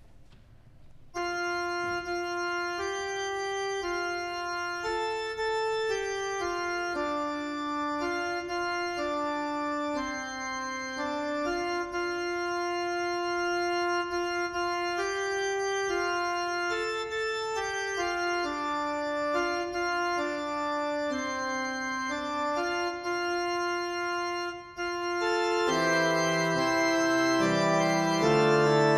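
Church organ playing the introduction of a hymn tune in steady held notes. About 25 seconds in, it grows louder and fuller as low bass notes join.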